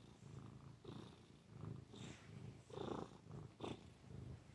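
Domestic cat purring softly, the low rumble swelling and fading about once a second with its breathing. A louder scuff about three seconds in stands out above the purr.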